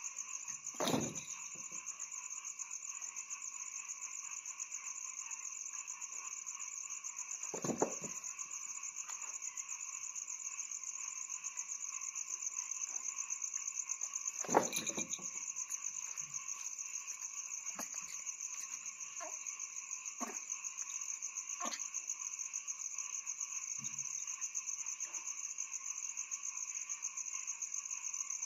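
Steady chorus of night insects trilling, several high, fast-pulsing songs running together without a break. A few short knocks and thumps, the loudest about a second in, near eight seconds and about halfway through, come from a long-tailed macaque jumping about on a table and chairs.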